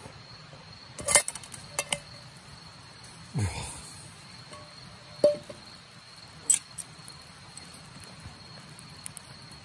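Metal mess-tin pot, its lid and wire handle clinking on a campfire grill as the lid is lifted off: a few sharp clinks, one of them ringing briefly. A steady high chirring of crickets runs underneath.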